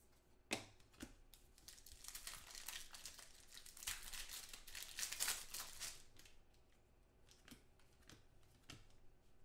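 Clear plastic wrapper crinkling and rustling in the hands for a few seconds, loudest near the middle, then a few soft ticks as trading cards are thumbed through.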